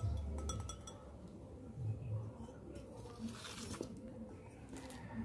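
Handling noises of a slow cooker's ceramic inner pot and body: a few light clinks with a short ring in the first second, a brief rustle about three and a half seconds in, and a click near the end.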